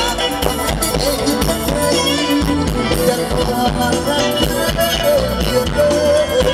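Live Isan luk thung band music over a stage sound system, with a steady drum beat and shaker-like percussion.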